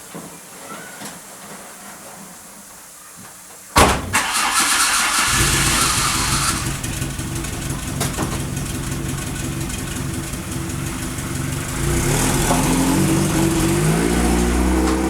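VW Golf Mk1's swapped-in 1.4 16V engine being cranked and starting about four seconds in, then idling steadily, its revs rising near the end. The exhaust leak has just been repaired, so it runs quieter than with the leak.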